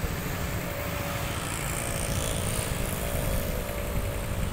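Jet engines of a Boeing 777-300ER climbing out after takeoff: a steady low rumble with a faint steady tone above it.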